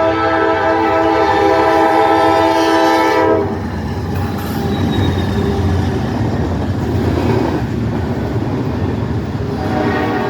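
Norfolk Southern locomotive's air horn sounding a long chord of several tones at once, cutting off about three and a half seconds in. The train's running rumble follows, and the horn starts a second blast near the end.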